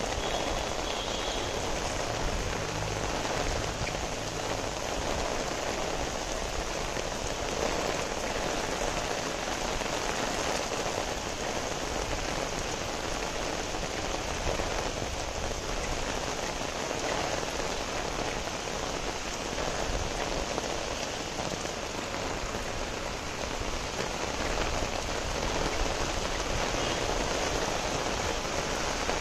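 Steady rain falling on a wet paved street, an even hiss that holds at the same level throughout.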